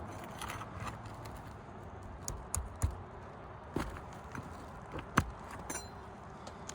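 Scattered sharp taps and clicks of a metal roofing tool working at the nails under asphalt shingles. There are a few irregular knocks, the sharpest about five seconds in.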